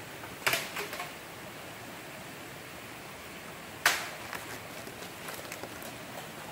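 Sharp clicks and snaps of vine lashing being worked and tucked tight around a wooden pole: a small cluster about half a second in and a single loud snap a little before the four-second mark, with a few faint ticks after it, over a steady background hiss.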